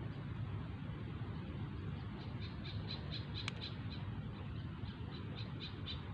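An animal calling: two runs of short, high chirps, about four a second, the first starting about two seconds in. A steady low hum lies underneath.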